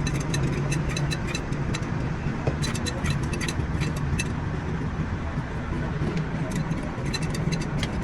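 A vehicle engine running steadily with a low hum, with many light, irregular clicks and taps over it.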